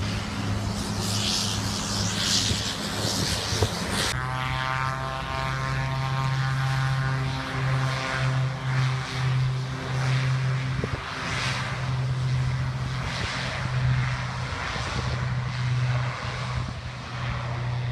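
Twin turboprop engines of a Sky Express BAe Jetstream 41 running: a steady propeller drone with a higher whine above it. A rougher, noisier rumble in the first few seconds cuts off abruptly about four seconds in.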